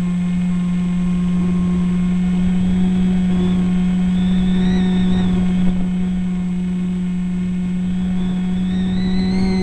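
Onboard sound of an EasyStar RC plane's brushless motor and propeller in flight: a steady hum with a low, uneven rumble of air on the microphone, and a higher motor whine that rises and falls twice as the motor speeds up and slows.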